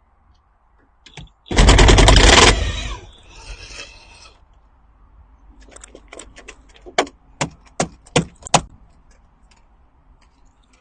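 A loud scrape lasting about a second, fading out over the next second or so, then a string of sharp knocks and clicks.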